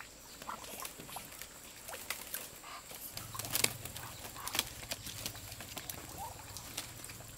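Muscovy ducks being caught by hand and pushed into a woven bamboo cage: short, soft bird calls among scattered clicks, rustles and wing flaps, with a sharper knock a little over three and a half seconds in.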